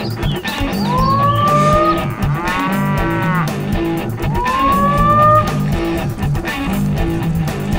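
Cattle mooing, with one long call about two and a half seconds in, over guitar music with a steady beat.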